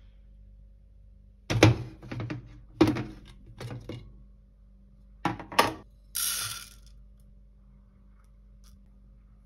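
A glass storage container set down with knocks and its clip-lock lid snapped open, a handful of sharp clicks, then a short rush of dry rice grains poured into a plastic measuring cup about six seconds in.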